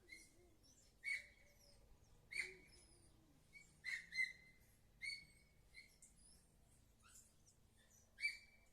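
A bird calling over and over: short, sharp chirps, about one a second.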